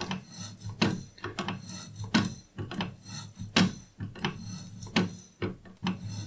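A 5 mm slotting tool scraping down through a cast aluminium bore on each stroke of the milling machine's quill, cutting an internal keyway in light 0.05 mm passes, at about two strokes a second. A steady low hum runs underneath.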